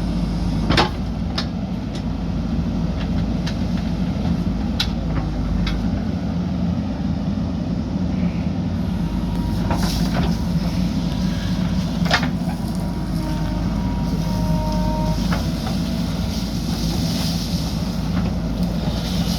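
JCB backhoe loader's diesel engine running steadily under work, with sharp metallic knocks and clanks every few seconds.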